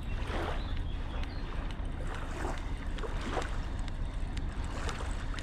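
Wind on the microphone making a steady low rumble, with small waves of the Rhine lapping against the bank in soft swells about once a second.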